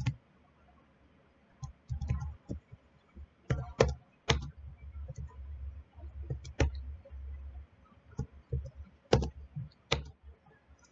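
Computer keyboard typing: scattered key clicks, uneven in pace, with a few louder keystrokes.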